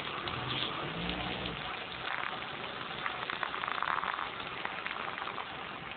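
Fire crackling and hissing as it burns a small model bus, with many irregular sharp crackles over a steady hiss.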